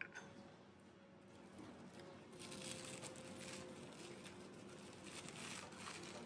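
Faint crinkling and rustling of plastic cling wrap over a bamboo rolling mat as a nori sheet spread with sushi rice is lifted and flipped over. The rustling starts a couple of seconds in and comes in uneven bursts.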